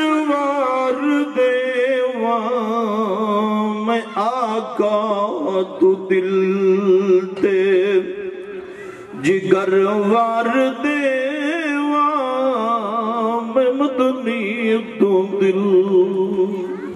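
A man's voice chanting devotional verse solo, in long held and ornamented melodic lines with a wavering pitch and no instruments.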